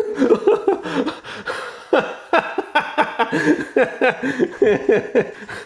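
A man laughing and chuckling in short, repeated bursts.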